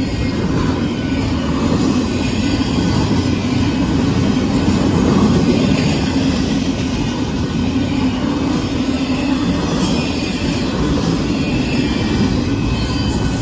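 Union Pacific intermodal freight train's double-stack container cars rolling past at close range: steady, loud noise of steel wheels running on the rails, with no let-up.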